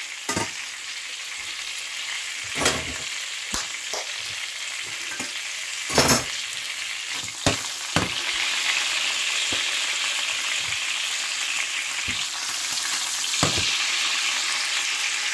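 Bratwurst sausages sizzling in hot fat in a stainless steel frying pan, with a few sharp clinks and knocks of metal tongs and a knife against the pan, the loudest about six seconds in.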